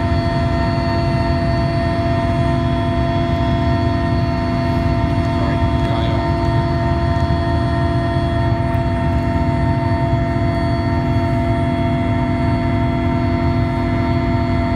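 Cabin noise of a Soviet-era Mil Mi-17 helicopter in flight, heard from inside the passenger cabin: the steady drone of its twin turboshaft engines and main rotor, several whining tones held over a low rumble.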